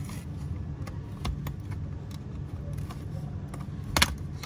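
Scattered small clicks and taps of a pry tool working around the edge of a Samsung SM-T295 tablet's screen and plastic frame, with a sharper click about four seconds in, over a steady low hum.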